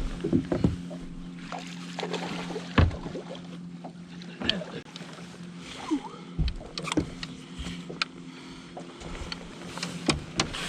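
Steady low hum aboard a fishing boat, with scattered sharp clicks and knocks from tackle and gear being handled while casting and reeling.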